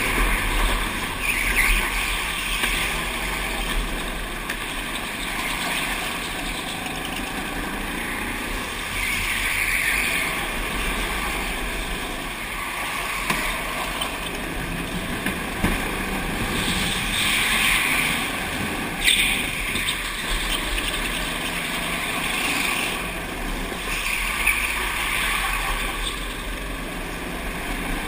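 Go-kart driving laps at speed, its motor and the rush of air heard through a helmet-mounted camera. The noise swells and eases every few seconds.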